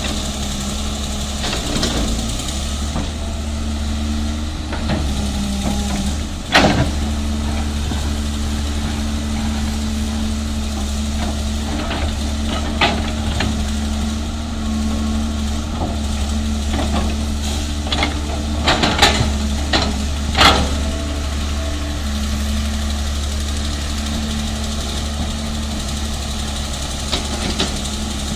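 Diesel engine of a 330 excavator running steadily, with scattered sharp knocks and clanks of rock and metal; the loudest comes about six and a half seconds in, and a quick cluster follows near twenty seconds.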